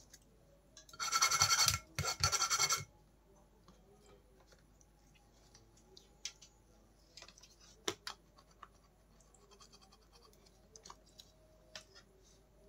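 Two scrapes about a second in, a soldering iron tip being wiped through the metal shavings of a tip-cleaning tin, followed by a few faint clicks.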